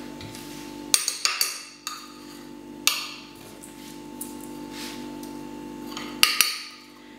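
Metal spoon knocking and clinking against a ceramic mixing bowl while stirring cake batter: a few sharp knocks about a second in, another near three seconds and a pair near the end, over a steady hum.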